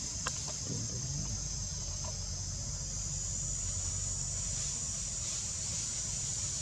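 Steady, high-pitched insect chorus, with a low rumble underneath and a faint click just after the start.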